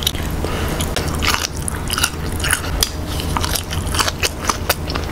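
A person chewing and biting boiled Đông Tảo chicken: a quick, uneven run of sharp mouth clicks and smacks.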